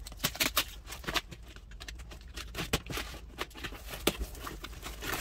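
Box cutter slitting the packing tape on a cardboard carton, then the cardboard flaps pulled open: a run of irregular scrapes, clicks and crackles.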